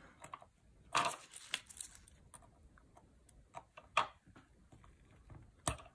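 Small metal tool clicking and scraping against a quartz watch's movement while prying at its button-cell battery: a few faint, irregular clicks, the clearest about a second in and about four seconds in.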